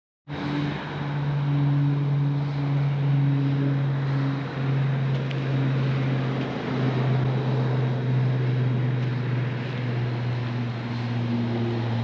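A 1999 Ford Mustang GT's 4.6 L V8 runs at low, steady revs. The engine has stage 2 cams, short-tube headers, an H-pipe, no catalytic converters and stock mufflers. The exhaust note holds one deep, even pitch that wavers only slightly.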